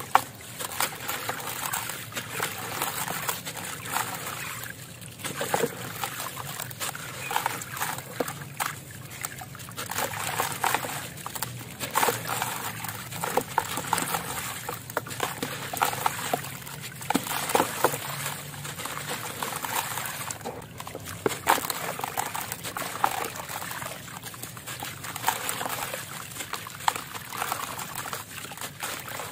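Crumbly concrete chunks being broken and squeezed by hand. Grit and crumbs crackle and trickle into a basin of water, with irregular sloshing and dribbling throughout.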